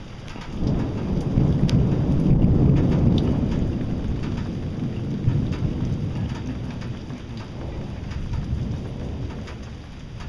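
A long roll of thunder that swells about a second in and slowly fades, with rain falling and scattered drops ticking.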